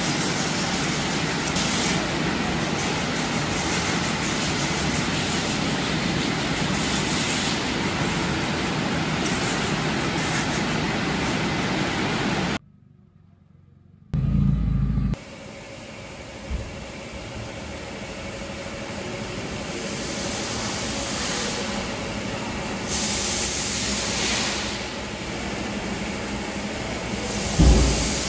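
A high-pressure water jet sprays a car's body with a steady hiss, then stops abruptly about halfway through. After a moment's silence there is a short low rumble. Quieter spray hiss follows and grows, with surges of spray and a low thump near the end.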